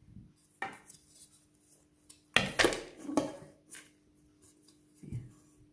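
Aluminium cake pan knocking and clattering against a plate as it is turned upside down to release a baked cake. The loudest run of knocks comes about two and a half seconds in, with single knocks before and after.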